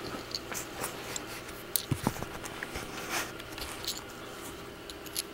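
Handling of a small metal tap wrench: scattered light clicks and taps of its parts, with a couple of sharper knocks about two seconds in.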